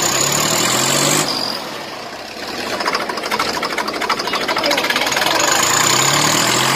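Swaraj 855 tractor's diesel engine running hard, with rapid, even firing beats. It drops off abruptly about a second in, then builds again and revs up near the end.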